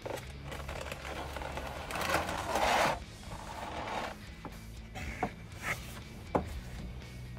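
Cardboard packaging rubbing and scraping as a boxed action figure is slid open, loudest about two to three seconds in, then three light clicks as the plastic tray and paper insert are handled. Quiet background music plays underneath.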